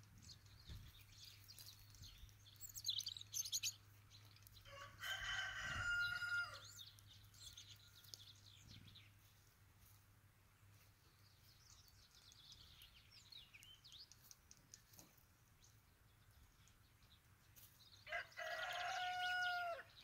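A rooster crowing twice, about five seconds in and again near the end, each crow lasting about two seconds. Faint high chirps of small birds come in between.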